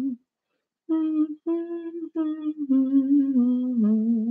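A woman humming a slow tune with her lips closed, holding each note with a slight waver. There is a short break under a second in, then a run of notes.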